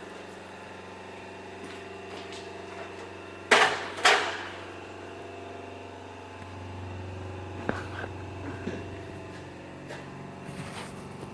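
Palmia industrial grinder running with a steady hum, with two loud metallic knocks a little over three seconds in and a few lighter clicks later.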